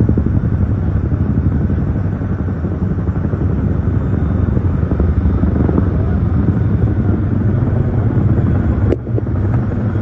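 Tandem-rotor firefighting helicopter flying low overhead: a loud, steady, fast-pulsing rotor chop with engine rumble. There is a brief break about nine seconds in.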